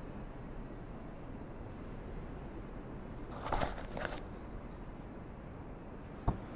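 Crickets chirping steadily as a night ambience, with two brief rustling noises about halfway through and a single sharp click near the end.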